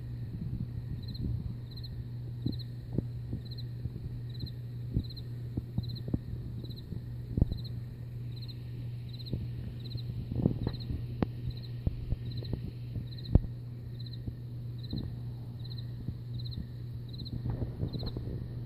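An insect chirping at a steady rhythm, about one and a half high chirps a second, over a steady low hum, with scattered clicks and knocks throughout.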